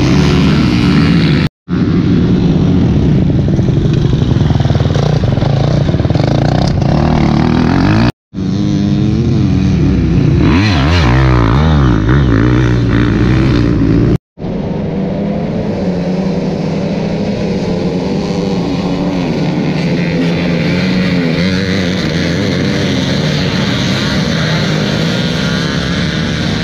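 Racing dirt bike engines running hard at high revs, with rising and falling pitch as they rev. The sound is cut off abruptly three times, like separate clips joined together.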